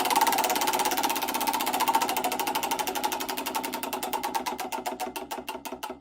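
McLaren F1's BMW V12 engine winding down: its beats get steadily slower, further apart and fainter.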